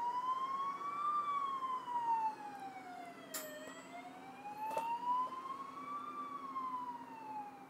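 Fire engine siren wailing, its pitch rising slowly and falling again about once every five seconds, with a steady low hum underneath.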